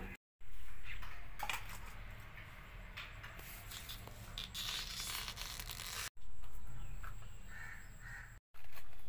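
Banana flower bracts being peeled off by hand: soft rustling with a few sharp crackles and snaps. The sound cuts out abruptly several times.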